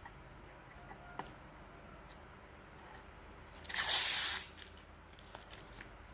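Packaging being torn open in one short rip lasting under a second, about two thirds of the way in, with light rustling and clicks of handling around it.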